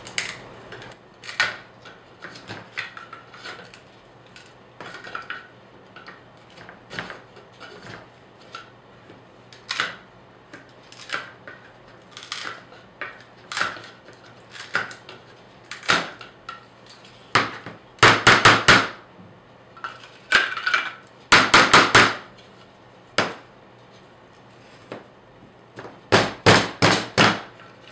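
Old chisel and screwdriver gouging rotten plywood core out of a gel-coated fiberglass coaming corner piece: scattered scrapes and knocks, with three runs of quick, sharp jabbing strikes, about six a second, two-thirds of the way in and near the end.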